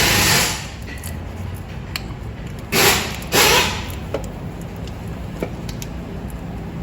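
Two short scraping rubs of hand work on metal parts, about three seconds in, with light scattered clicks and taps, as an AC compressor is worked back into place under a car.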